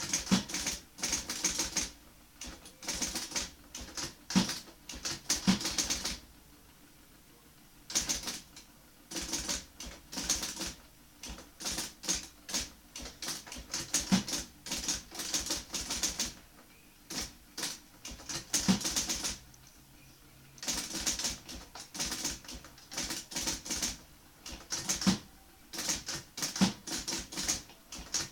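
1960 IBM Model C electric typewriter typed fast: rapid runs of key strikes in bursts of a few seconds, broken by short pauses.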